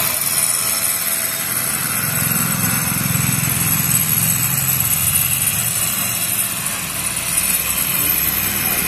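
A motor engine running steadily, with a few faint thin high tones above it.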